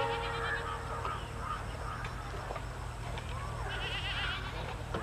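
Low, steady rumble of a distant diesel locomotive approaching, the tail of its horn dying away at the start, with faint animal calls over it.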